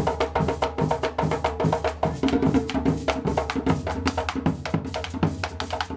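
Background music with a quick, even drum beat over a steady bass line.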